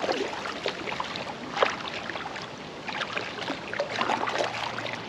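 Oars dipping and splashing in the water as a kayak is rowed at an easy pace, with irregular splashes and drips.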